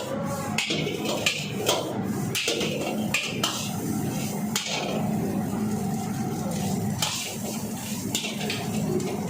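Metal spatula striking and scraping a wok while fried rice is tossed: repeated clanks, about two or three a second at first, then fewer.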